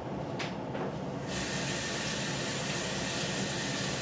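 Aerosol can of canola cooking spray hissing in one continuous spray of about three seconds, starting suddenly about a second in, with a couple of light handling clicks before it.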